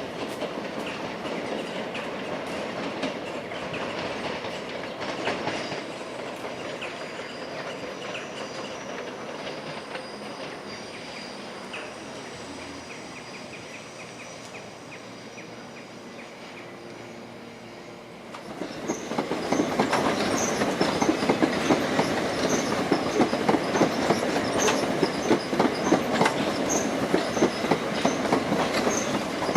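Passenger train running on the rails, wheels clattering over the track; about eighteen seconds in it suddenly gets much louder, with a dense clatter and faint high squeaks.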